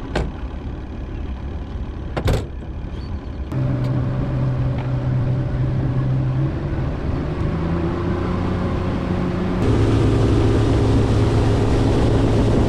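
A boat motor running steadily, coming in about three and a half seconds in after a couple of sharp knocks, as the boat sets off. It gets louder with more rushing noise for the last few seconds.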